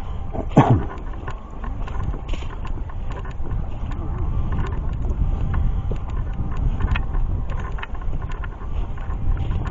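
Wind rumbling on the microphone during a walk on a trail, with scattered small clicks and crunches. About half a second in, a short loud sound falls quickly in pitch.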